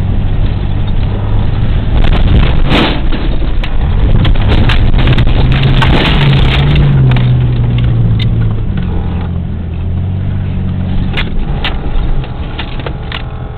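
Jeep engine heard from inside the cab, pulling hard under acceleration: its pitch climbs, then drops off after about eight seconds. Many knocks and rattles come through as the vehicle bounces over rough off-road ground.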